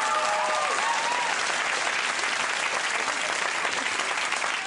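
Studio audience applauding and laughing, with voices laughing over the clapping in the first second.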